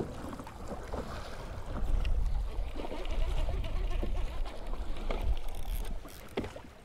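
Choppy sea water splashing and slapping against a moving kayak's hull, with wind rumbling on the microphone and a few short knocks; the wind rumble eases off about six seconds in.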